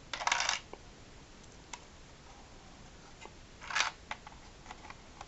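Hands turning a plastic toy starship: two short rustling scrapes of fingers on the plastic, one at the start and one about four seconds in, with a few light clicks between.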